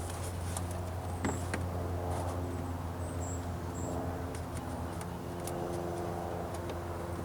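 A steady low engine hum with a few light clicks.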